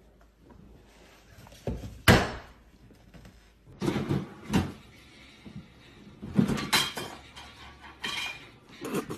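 A plastic swing-lid trash can knocking and clattering as a cat moves about inside it. There is a sharp bang about two seconds in, then a string of thumps and rattles.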